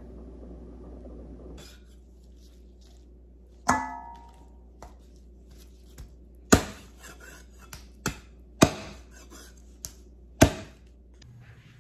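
Heavy meat cleaver chopping a raw chicken into bone-in pieces on an end-grain wooden butcher block: about five hard, separate chops with a few lighter knocks between them, one chop carrying a brief metallic ring.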